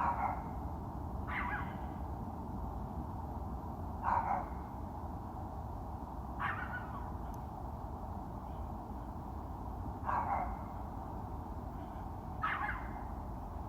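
A dog barking in short, falling calls, six times at uneven intervals of one to two and a half seconds, over a steady low rumble: the faint jet-like drone still hanging in the sky.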